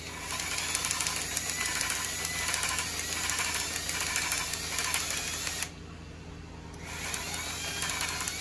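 Cordless drill running a reciprocating valve-lapping tool, lapping a new valve into its seat in lapping compound on a 1973 Triumph Spitfire cylinder head: a steady whir with the valve turning back and forth. It stops for about a second just past halfway, then starts again.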